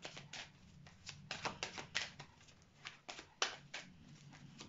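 A deck of oracle cards being shuffled in the hands: an irregular run of quick, sharp card snaps and slaps.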